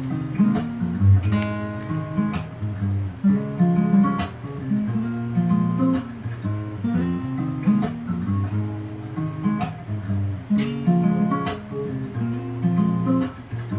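Acoustic guitar played by hand, a short melodic phrase of plucked and strummed chords repeated over and over as an idea for a beat.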